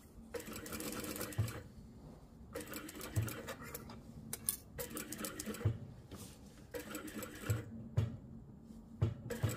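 Industrial lockstitch sewing machine stitching padded coat fabric in about six short runs with pauses between, most runs ending in a low thump as the machine stops.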